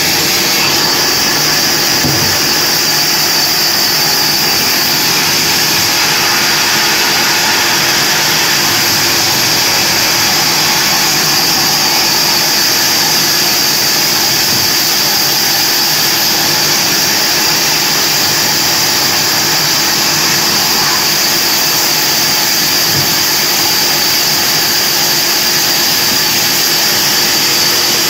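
Large vertical bandsaw running steadily while its blade cuts through firewood logs: a loud, even machine noise with a high hiss that does not let up.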